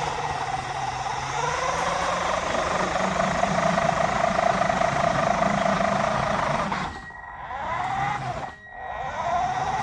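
Radio-controlled toy Mini Cooper S's electric drive motor and gears whining as the car drives, held steady for about seven seconds with the pitch drifting up and down. Then two shorter bursts of speeding up and slowing down.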